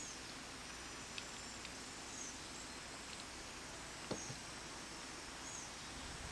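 Quiet outdoor ambience: a steady low hiss with faint, short high chirps now and then. A light knock about four seconds in, as a cup is set down on the wooden porch rail.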